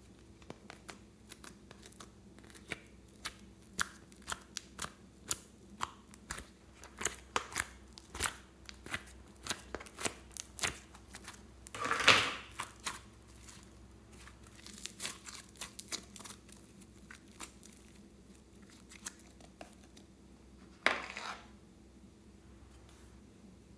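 Purple slime worked by hand: a run of small sticky clicks and pops, then a louder squelch about halfway through as the lump drops into a bowl of clear slime, and another near the end.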